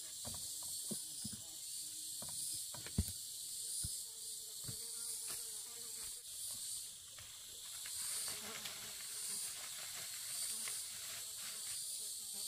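A steady high-pitched insect chorus that swells and fades about once a second. Over it come a few soft knocks of soil and clods being handled in the first few seconds, the sharpest about three seconds in, and later a rustle of dry leaves and brush being carried.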